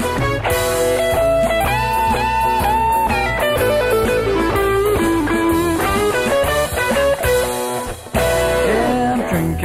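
Blues-rock music: an electric guitar plays a lead line over a backing band, with notes that bend and slide in pitch.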